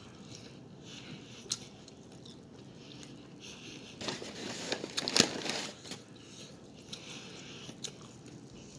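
Close-miked eating: a person chewing and biting into food, with a louder run of crunchy bites about four to six seconds in.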